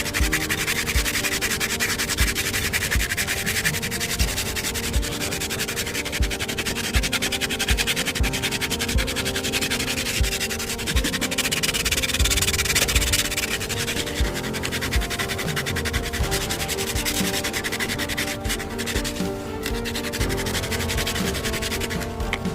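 A wooden block being sanded: a steady, scratchy rubbing that goes on without a break, with small irregular knocks from the block being handled. Background music with a slow melody plays underneath.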